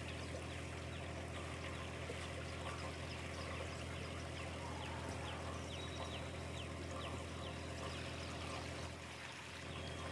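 Hand rubbing and tossing dry wheat flour in a steel bowl: a soft, steady rustling with a few faint ticks, over a constant low hum.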